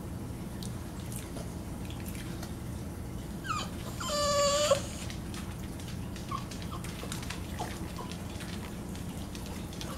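Boston Terrier whining: a short rising squeak about three and a half seconds in, then one clear whine lasting under a second, with a few faint short whimpers later. A steady low hum runs underneath.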